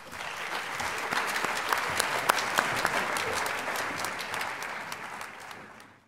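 Audience applauding, swelling within the first second and fading away near the end.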